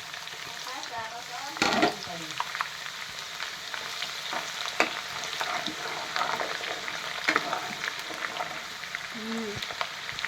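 Fenugreek seeds sizzling and crackling in hot oil in a karahi, with a utensil stirring them; a louder burst of crackling about two seconds in.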